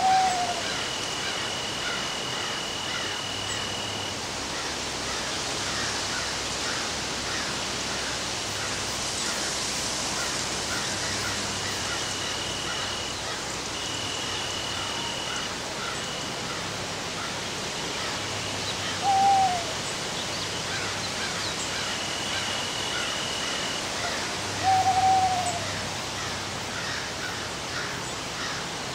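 Outdoor nature ambience with a steady hiss. An animal gives a short falling call three times: once at the start, once around two-thirds of the way through, and again a few seconds later. A high, thin steady tone comes and goes in stretches of a second or more.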